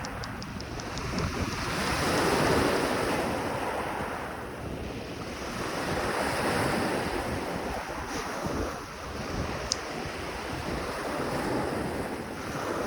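Sea waves washing in, the surf swelling and ebbing every few seconds, with wind rumbling on the microphone. One sharp click about ten seconds in.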